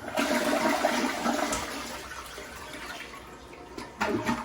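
Sterling Windham two-piece toilet flushing on its first test after installation: a loud rush of water that fades away over a few seconds. A short, louder sound comes near the end.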